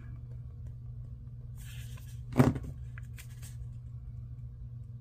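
Desk-top handling while a paper sticker is set into a journal: a light rustle, then one short dull thump about halfway through, followed by a few small clicks, over a steady low background hum.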